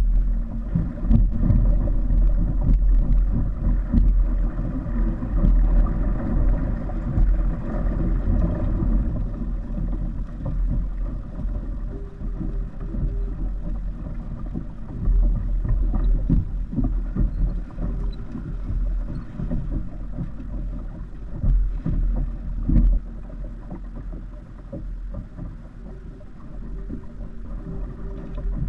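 Water rushing and splashing against the hull of a kite-towed kayak under way, with wind buffeting the microphone in a heavy, gusting low rumble.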